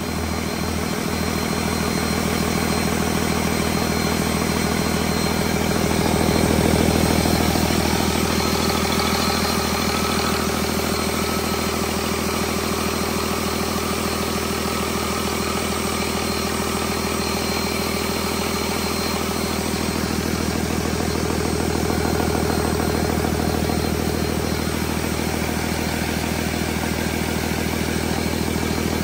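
2012 Cummins ISB 6.7-litre inline-six turbo diesel engine idling steadily, with a brief swell in level about six seconds in.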